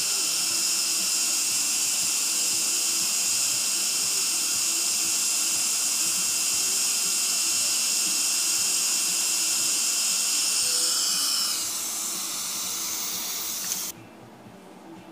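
Steady high-pitched hiss and whine of running dental equipment during diode-laser excision of gum tissue, with a thin steady tone in it. About eleven seconds in it winds down with a falling pitch, then cuts off abruptly near the end.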